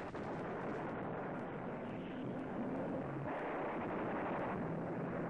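Fighter aircraft engine droning in flight, a steady dense roar that grows a little louder about three seconds in.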